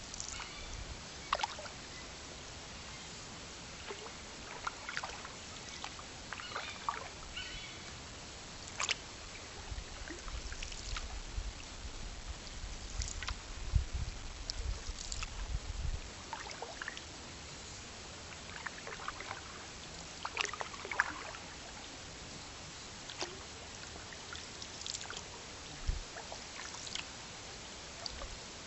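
Canoe paddle dipping into the water in slow, irregular strokes, with small splashes and trickles of dripping water over a steady hiss. A low rumble joins in for several seconds about halfway through.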